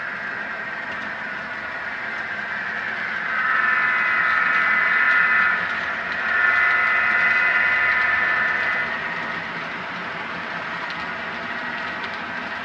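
HO-scale model freight train with diesel locomotives running across the layout. A steady mechanical sound with a high-pitched tonal edge swells louder for about five seconds in the middle, with a brief dip partway through.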